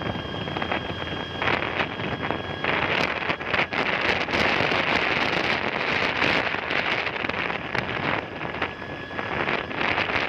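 Wind buffeting the microphone of a moving motorbike: a rushing noise that swells and drops in gusts, with the road and engine noise of the ride beneath it.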